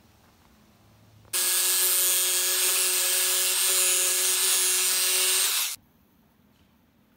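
Electric jigsaw cutting through an orange plastic flared bass-reflex port tube. It runs steadily for about four seconds, a steady motor tone under a bright hiss. It starts abruptly a little over a second in and stops abruptly near the end.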